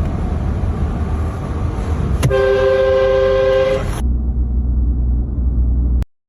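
Car driving with a steady low road and engine rumble. A little over two seconds in, the aftermarket train horn sounds one blast of several steady pitches together, lasting under two seconds. The rumble then runs on until the sound cuts off abruptly near the end.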